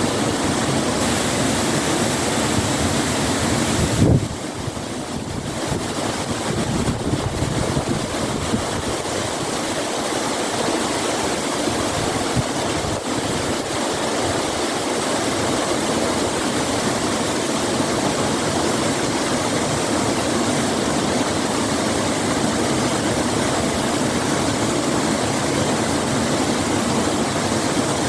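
Waterfall: a steady, dense rush of falling water. A brief louder bump comes about four seconds in, and the rush is a little softer for a few seconds after it.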